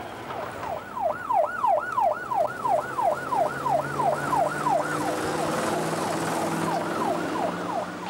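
Police car siren on a Rover SD1 police car, wailing fast up and down about three times a second in a yelp pattern, with the car's engine note rising underneath as it pulls away. The siren eases slightly after about five seconds, then carries on.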